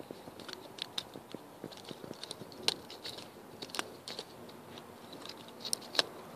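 8-week-old golden retriever puppy chewing a pine cone: irregular crunching and cracking of the cone's scales between its teeth, with a few sharper cracks, the loudest near the end.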